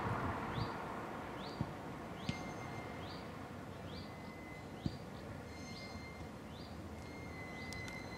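A small bird repeating a short, high, rising call at an even pace, a little under once a second, over faint steady traffic noise that fades in the first second.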